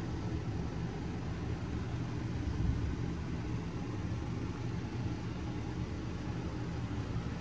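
Steady low rumbling hum of background noise inside the motorhome, even throughout with no distinct events.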